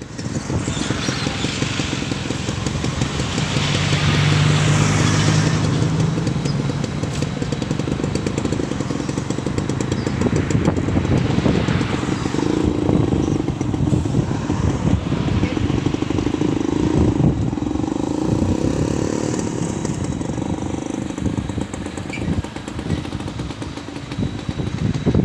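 Amphibious excavator's diesel engine running under load, its pitch rising and falling as the machine works, with frequent knocks and clatter.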